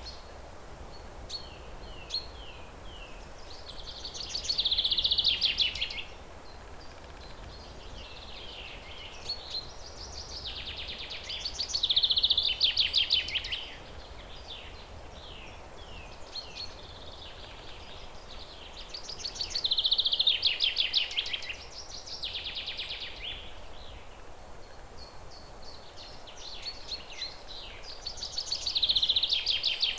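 A songbird singing a rapid, dense phrase about two seconds long, four times at roughly eight-second intervals, with short chirps in between, over a steady background hiss.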